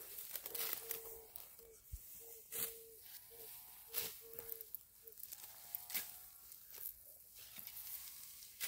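Ripe, dry wheat being reaped by hand: the stalks crunch and rustle with a sharp crackle every second or two as handfuls are cut and gathered.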